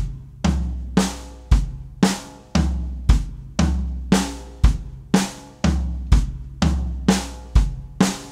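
Gretsch drum kit played slowly: evenly spaced strokes about two a second, a deep bass drum hit on roughly every third stroke, each hit left to ring. This is the hands-and-foot sticking right, kick, right, left, kick, left.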